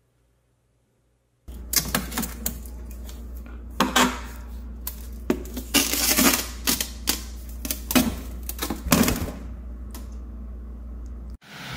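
A plastic tub of water and its frozen ice block being handled in a plastic freezer drawer: a string of sharp clicks, knocks and scrapes over a steady low hum, starting about a second and a half in.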